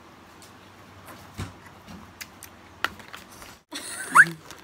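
Quiet room with a few light clicks and handling knocks, then near the end a burst of crinkling plastic wrapper being handled, with a short rising squeak.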